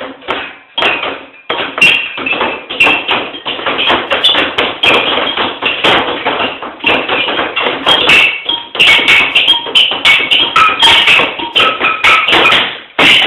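Fast, rhythmic tapping and knocking on a kitchen table: two people drumming on it as a percussion piece, many quick strikes close together.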